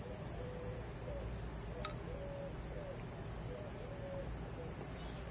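Insects chirring: a steady, finely pulsing high-pitched hum, with one faint click about two seconds in.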